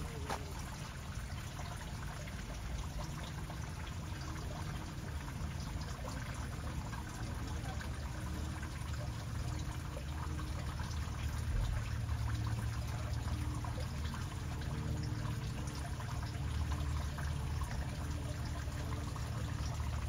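Water trickling and pouring steadily over a low rumble.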